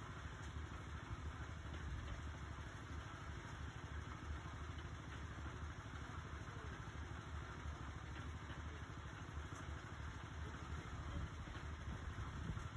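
Small gasoline engine of a tow-behind concrete mixer running steadily, with a low, even rumble.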